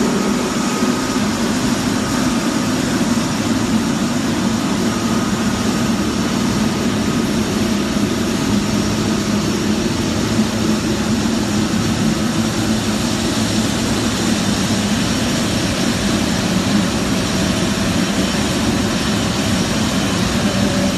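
Jet airliner noise on an airport ramp, loud and steady: a low hum with a faint high turbine whine over it.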